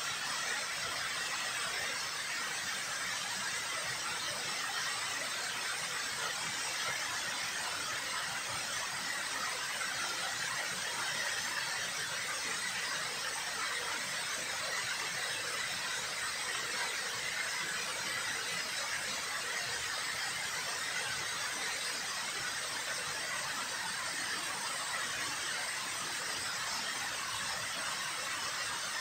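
Water falling over a concrete dam spillway into the river: a steady, even rushing of falling water.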